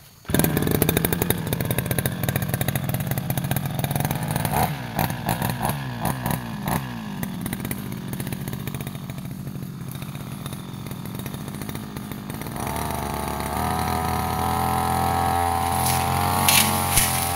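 Backpack brush cutter's small petrol engine running while clearing undergrowth, its pitch wavering and dipping with a run of clattering ticks in the first half. About two-thirds through it revs up and holds at a higher, steadier pitch.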